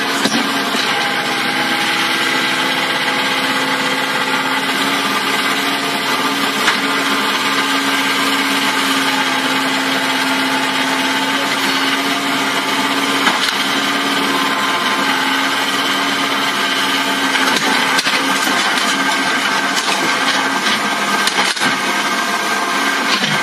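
Doosan mini excavator's diesel engine running steadily under load while it works its boom to climb onto a dump truck bed, with a couple of sharp knocks partway through and near the end.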